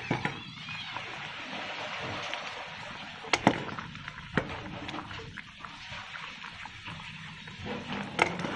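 Pot of fish and tomato broth boiling with a steady bubbling hiss, while a metal ladle stirs and scoops in it, clinking sharply against the pot a few times.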